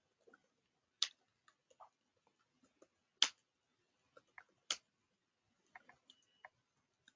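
Computer keyboard keys struck one at a time: a few sharp, separate clicks a second or two apart, with fainter taps between.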